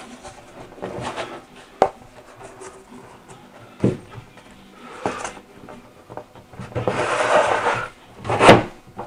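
A white floating shelf being slid onto its wall-mounted rail: a few light knocks, a longer scraping rub about seven seconds in, and a louder knock near the end.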